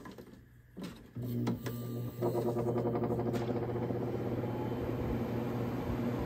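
Vintage Sears Coldspot View Saver window air conditioner being switched on: a few clicks, then about a second in a low hum comes on. A second later the unit settles into a steady running drone of fan and compressor.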